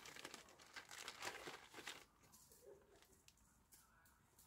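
Faint crinkling and rustling of something being handled for about two seconds, then quieter with a few small scattered sounds.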